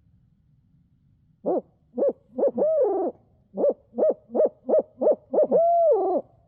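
Barred owl hooting in its 'who cooks for you, who cooks for you all' rhythm: two phrases of short hoots, each ending in a long drawn-out hoot, loud and close. It is the owl call that turkey hunters use at dusk to make a gobbler shout back.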